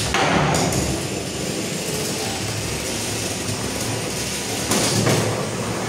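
Antweight drum-spinner combat robots fighting: a loud clash of the spinning drum weapons right at the start, a steady whir of the spinning drums, then a second hard hit about five seconds in.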